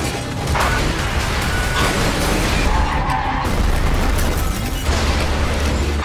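Action-film soundtrack: dramatic music mixed with vehicle crash, skid and explosion effects, a heavy low rumble under several sudden impacts.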